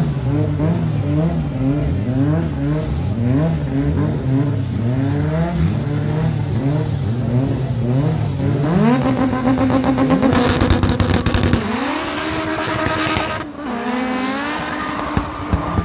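Staged drag-race cars revving their engines up and down in quick, repeated blips at the line, then launching and accelerating hard down the strip about nine seconds in. The engine pitch climbs, drops at two gear shifts, and fades as the cars pull away.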